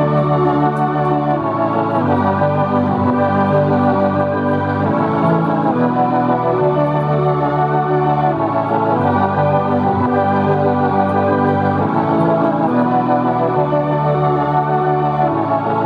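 Instrumental pop music played back on a Soundcore Motion X600 Bluetooth speaker: sustained organ-like keyboard chords over a bass line that changes about every two seconds, with no vocals.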